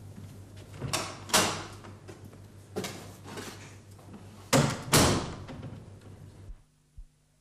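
A door being opened and shut: a series of knocks and bangs, the loudest two about four and a half and five seconds in, over a steady low hum. The sound cuts off about six and a half seconds in.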